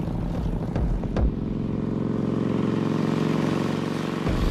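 Motorcycle engine running at speed, a steady drone of many tones, suddenly louder and fuller near the end as the bike comes close.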